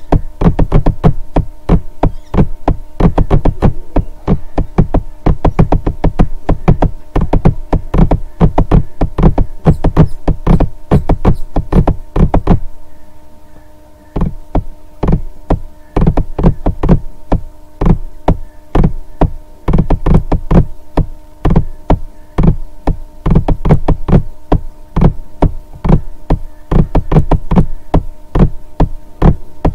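Electronic background music: a steady knocking beat, about three strikes a second, over a held droning chord. It breaks off briefly about halfway through, then picks up again.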